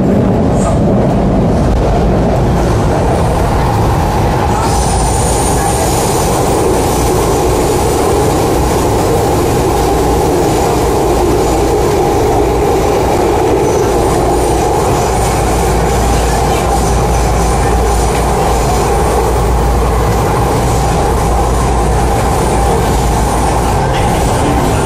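MTR C-Train metro car running between stations, heard from inside the passenger cabin: a steady rumble and rolling noise from wheels on rail. A thin high-pitched whine joins about five seconds in and carries on over the rumble.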